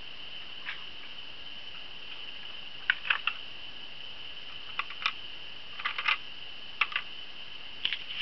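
Steady high-pitched whine of the recording camcorder with scattered light clicks and taps of handling, in small clusters from about three seconds in.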